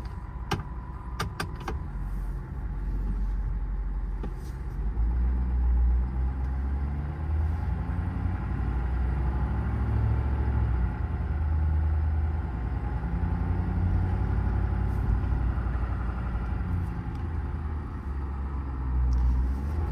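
Ford 6.7 Powerstroke V8 turbodiesel of an F-550 truck driving, heard from inside the cab: a low engine drone with road noise that swells and eases as the truck pulls away. A few light clicks in the first two seconds.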